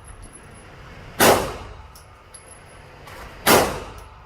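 Two gunshots about two seconds apart, each a sharp bang with a short echoing tail.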